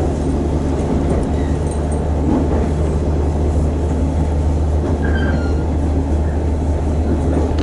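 Shinano Railway electric train running, heard from inside the passenger car: a steady low rumble of motors and wheels on the rails.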